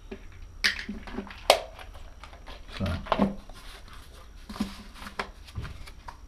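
Handling sounds: sharp clicks from a small plastic accessory case being handled and set down on the bench, the loudest about a second and a half in, then paper rustling as the operating manual is picked up and leafed through.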